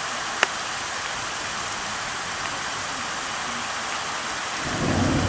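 Steady hiss of heavy rain, with a single sharp click about half a second in. Near the end a low rumble of thunder begins.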